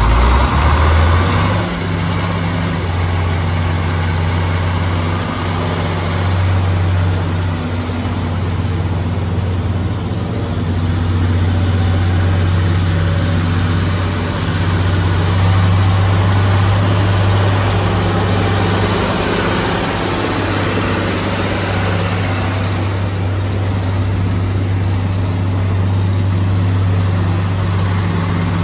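John Deere 4020's six-cylinder diesel engine running steadily at a low, even pitch as the tractor drives slowly around, a little louder in the first second or so.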